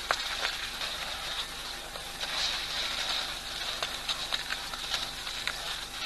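Outdoor waterhole ambience: a steady high hiss with many small ticks and patters scattered through it, with a brief swell in the hiss about halfway through.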